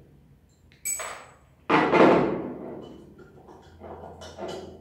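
Metal clinks and knocks from a revolver and tools being handled on a workbench during disassembly. There is a sharp, ringing metallic clink about a second in and a heavier knock shortly after, then lighter clicks near the end as a screwdriver works on the revolver.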